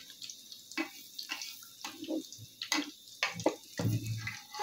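Puff puff (kaimati) dough balls deep-frying in hot oil in an aluminium pot, with irregular crackling and popping. A metal slotted spoon is turning them in the oil.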